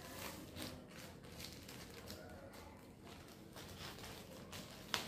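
Scissors cutting open a plastic courier mailer bag: a series of faint irregular snips and rustles, with one sharp click near the end.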